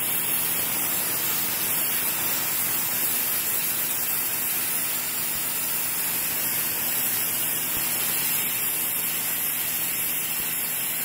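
Sun Joe SPX3000 14.5-amp electric pressure washer jetting water through its 15-degree nozzle onto concrete. It makes a steady, even hiss of spray with a faint hum underneath.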